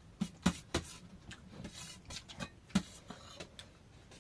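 Eating sounds while eating chow mein: an irregular string of short smacks and clicks from mouth and utensils.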